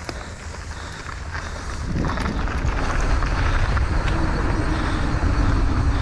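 Wind buffeting the microphone and knobby tyres rolling over a dirt trail as a downhill mountain bike rides down; it gets louder about two seconds in as speed builds.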